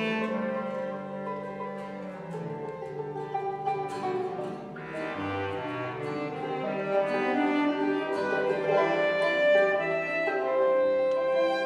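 Instrumental folk tune played on violin, clawhammer banjo, bass clarinet and acoustic guitar: held violin and clarinet notes over picked banjo and guitar.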